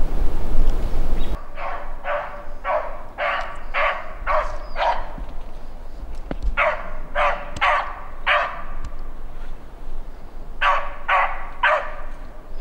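Beagles baying on a rabbit's trail: runs of short, pitched barks, about three a second, in three bouts with pauses between. A low rumble on the microphone comes first, for about a second and a half.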